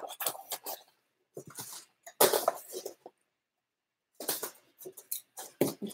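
Box cutter being worked through a cardboard box, with short scraping strokes and packaging rustling, and a pause of about a second midway.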